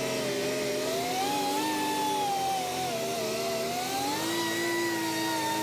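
5-ton military truck running, a steady engine whine that rises and falls slowly in pitch a couple of times.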